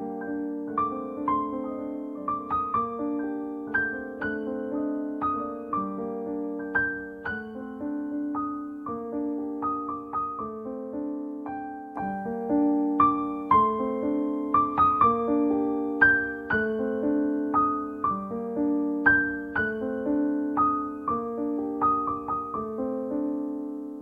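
Background instrumental piano music: a melody of struck notes over held chords, growing louder about halfway through.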